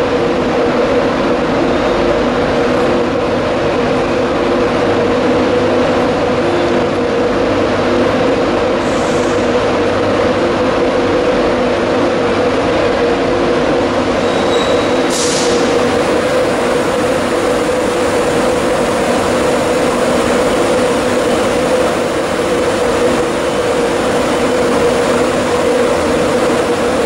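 Class 91 electric locomotive pulling slowly out of a station, its electrical equipment giving a loud, steady hum with several fixed tones. There is a brief hiss about halfway through.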